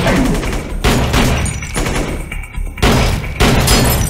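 Film soundtrack of a gunfight: several bursts of rapid gunfire and heavy impacts mixed with action score music, with a brief lull about two and a half seconds in.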